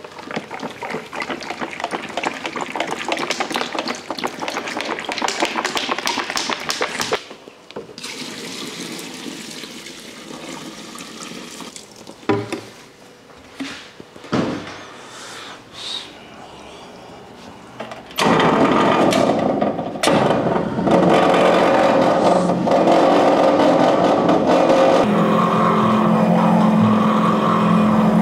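Cooking oil glugging from a plastic bottle into flour in a steel dough mixer, followed by a quieter stretch with a few knocks. Then the mixer's electric motor starts and runs steadily with a hum as its paddle kneads the dough.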